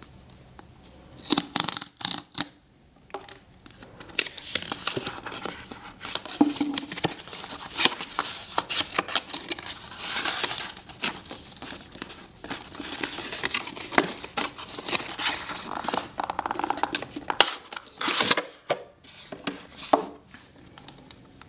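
Cardboard retail box of a GoPro Hero 5 Black being opened by hand: the perforated cardboard sleeve torn open, then the box scraped, rustled and clicked as the inner box and clear plastic case are slid out. Irregular scratching and tearing with a brief lull a couple of seconds in.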